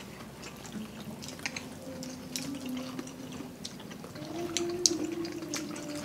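Eating at a table: irregular small clicks of utensils and wet mouth sounds, over a faint background song with long held notes.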